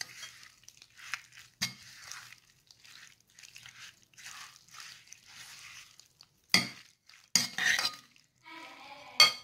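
Metal spoon tossing oily grilled courgette ribbons in a bowl: repeated soft, wet swishes, with sharp clinks of the spoon against the bowl, the loudest few in the second half.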